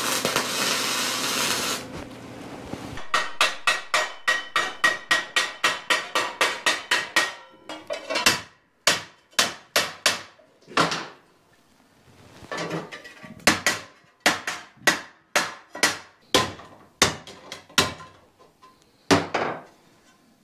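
Welding arc crackling steadily, cutting off about two seconds in. Then a hammer striking the steel bracket held in a vise: a quick run of blows about three a second, slowing to scattered single strikes that stop shortly before the end.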